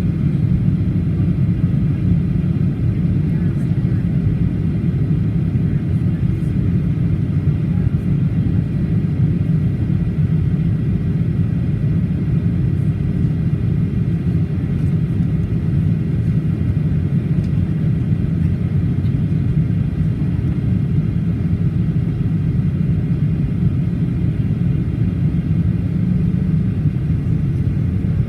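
Steady low roar inside the cabin of a Boeing 737-800 in flight, from airflow and its CFM56-7B engines, with a faint thin steady whine above it.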